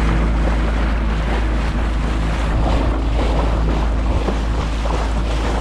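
Boat outboard motor running steadily under way, with water rushing along the hull and wind buffeting the microphone; the wind rumble is the loudest part.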